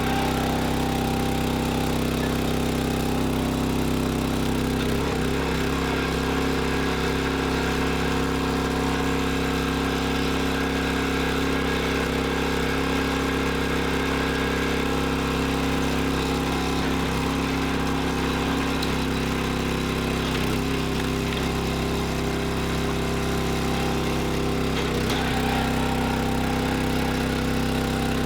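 Small gasoline engine of a 25-ton hydraulic log splitter running at a steady speed, driving the splitter's hydraulic pump.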